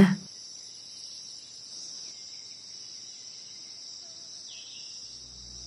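Steady, high-pitched insect chorus, a continuous shrill buzz in the jungle. Low sustained music tones come in near the end.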